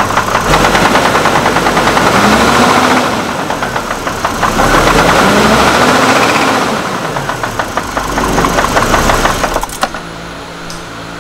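Hummer H3 engine revved up and down twice, with a rapid knock running through it, then it stalls abruptly near the end, leaving a steady hum. The owner places the knock at the top of the engine rather than the bottom end, and suspects a camshaft position sensor behind the stalling.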